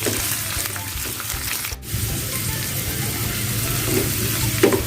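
Sliced shallots, garlic, chillies and bay leaves sizzling in hot oil as they are sautéed until fragrant, with a brief dropout a little under two seconds in.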